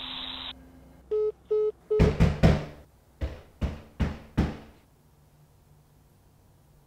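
Three short beeps of a phone call cutting off, then loud, reverberant pounding knocks on a door: three quick blows, then four more, evenly spaced.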